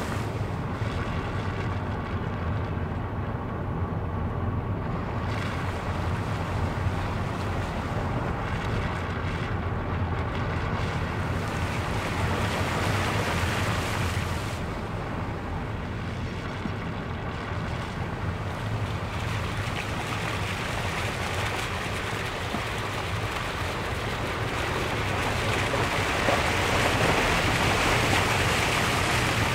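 A car driving through shallow floodwater over a road: a steady hiss of water sprayed up by the tyres over a low engine and road hum, the splashing louder near the end.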